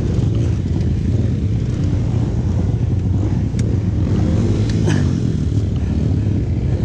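Motorcycle being ridden: its engine running steadily under a low, even rumble of road noise.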